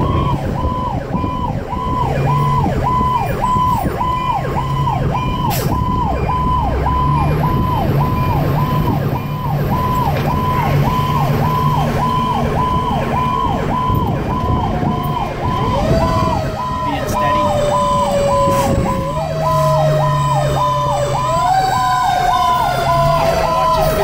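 Fire engine siren heard from inside the cab of a 2010 Pierce Arrow XT, cycling in a fast yelp about twice a second. After about fifteen seconds a second, lower siren tone joins; it is pushed up in pitch several times and each time slides slowly back down.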